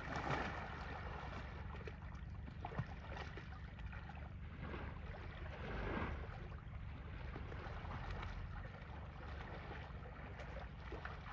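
Wind rumbling on the microphone over water sloshing and splashing from Asian elephants moving about in a pool, swelling louder near the start and again about six seconds in.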